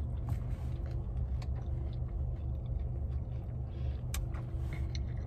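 Low, steady rumble of a car idling, heard inside the cabin, with a few faint clicks.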